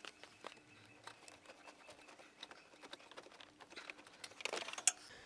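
Faint scattered ticks and rustles of hands handling wiring in a car's engine bay, growing louder near the end as the cable is pulled and shifted.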